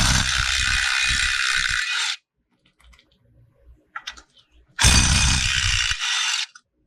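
Power impact wrench hammering on bolts in two bursts of about two seconds each, the second starting about five seconds in, loosening the bolts with a 19 mm socket.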